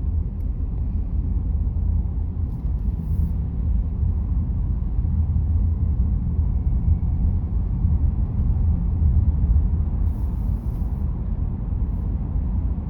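Car driving along at steady speed: a low, steady rumble of road and tyre noise heard inside the cabin.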